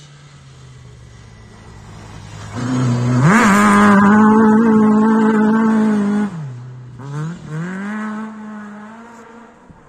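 Rally car engine approaching and passing at full throttle: the revs climb steeply as it comes close and hold high, dip briefly about six seconds in, then climb again and fade as the car drives away.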